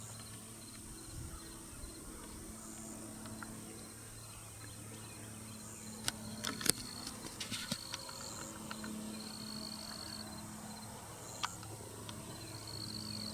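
Insects chirping in short repeated trills over a steady high-pitched whine, with a low steady hum underneath. A cluster of sharp clicks comes about six to eight seconds in.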